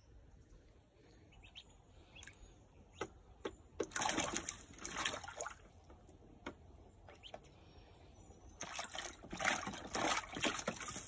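Australian wood duck duckling bathing in a shallow plastic tub of water, splashing in two bouts of a second or two each, about four seconds in and again about nine seconds in, with a few small flicks and drips of water before.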